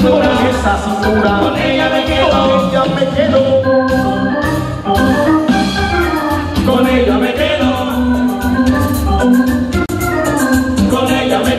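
Live cumbia band playing loudly through a PA system, led by an electronic keyboard melody over a pulsing bass line and percussion.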